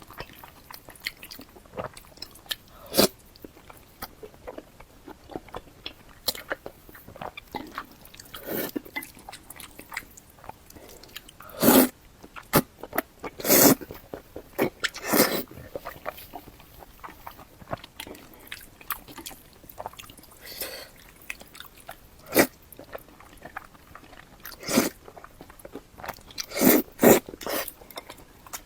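Close-miked eating: a person biting and chewing sesame-paste potato noodles, with wet mouth sounds at irregular intervals and a few louder ones.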